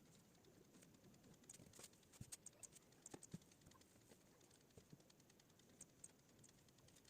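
Faint, irregular clicking at a computer, likely from working its controls while answering test questions, over a quiet room.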